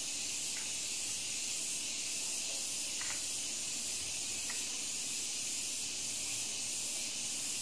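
Steady high-pitched hiss of a microphone's background noise, with a few faint clicks.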